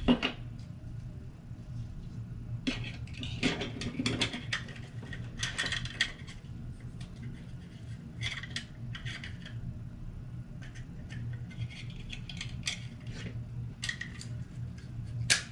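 Small plastic parts being handled and fitted, with scattered clicks, taps and light rattles throughout, a sharper click near the start and another near the end. A steady low hum runs underneath.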